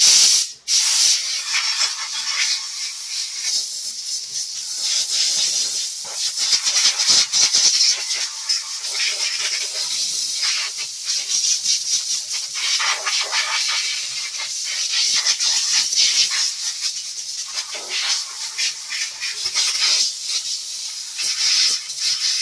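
Pressurized spray hissing almost without a break over brake parts, varying in strength as it is moved around.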